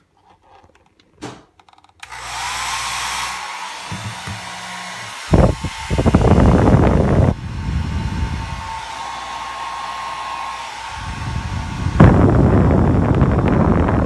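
Panasonic hair dryer switched on at its cool, fan-only setting about two seconds in: the motor's whine rises as it spins up and then runs steadily. The airflow, aimed at the microphone, adds loud low rumbling, once for a couple of seconds midway and again over the last two seconds.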